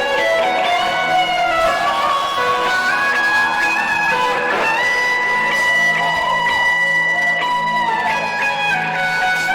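Electric guitar solo with sustained, bending notes over a steady low backing; about halfway through, a long high note is held for some three seconds.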